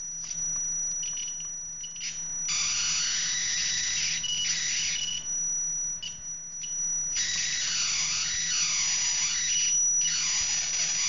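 High-voltage arc buzzing across the opened spark gap on a home-built flyback transformer's secondary, driven by a 555 timer and MOSFET. It comes in stretches of a few seconds, starting about two and a half seconds in. Under it runs the driver's steady high-pitched whine.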